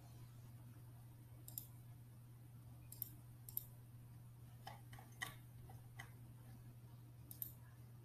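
Faint, scattered computer clicks, around eight of them with a few close together about five seconds in, over a steady low hum.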